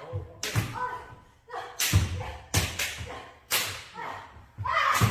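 Kendo sparring: several sharp cracks of bamboo shinai striking each other and the armour, with heavy stamping footfalls on a wooden floor, echoing in a large hall. A shouted kiai rises near the end.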